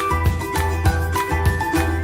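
Background music with a steady, evenly pulsing beat and a line of short, high melody notes.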